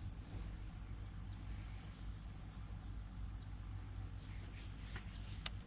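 Faint outdoor ambience on the water: a steady low rumble with a few short, high chirps spaced a second or two apart, and one sharp click near the end.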